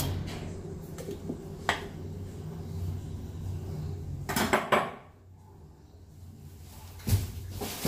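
Kitchenware clinking and knocking: a metal spoon and a glass coffee jar with its glass lid handled and set down on a stone counter. There are single clinks, then a quick cluster about four and a half seconds in, over a low steady hum that stops about five seconds in.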